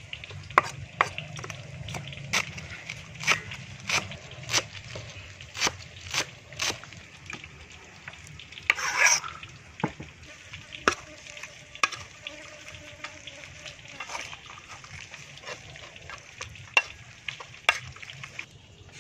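Oil sizzling steadily as chive cakes deep-fry in a pan, with sharp clicks and taps about once or twice a second and a louder crackling burst about nine seconds in. The sizzle drops away near the end.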